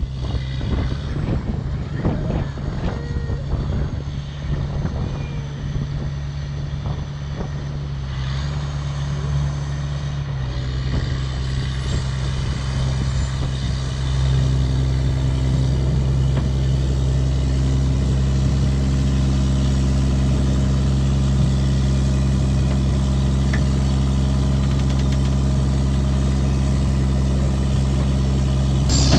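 Vehicle engine running steadily under load, a low even hum that steps up in pitch and gets louder about a third of the way through.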